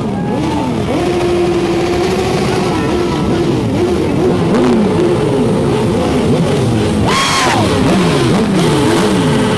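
Several motorcycles revving their engines again and again as they ride past, their pitches rising and falling over one another, very loud. A short high-pitched blast cuts through about seven seconds in.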